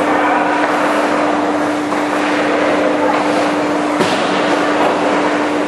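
Indoor ice rink ambience during a hockey drill: a steady machine hum with one constant tone under a wide wash of noise. One sharp crack of stick or puck comes about four seconds in.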